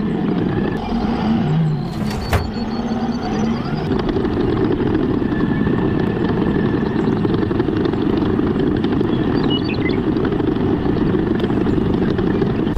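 Toy crawler excavator's small electric motors and gears running steadily as its tracks and dozer blade push through gravel, with a sharp click about two seconds in.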